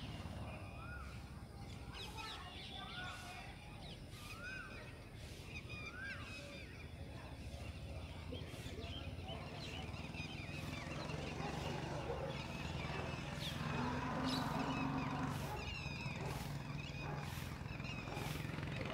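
Birds calling: a rising-and-falling call repeated about five times, roughly a second and a half apart, then scattered small chirps, all over a low steady hum.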